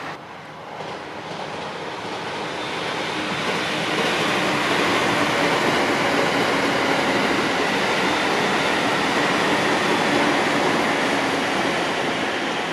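A long electric commuter train with double-deck cars running past: a steady rushing rumble of wheels on rails that builds about two seconds in, stays loud through the middle and eases a little near the end.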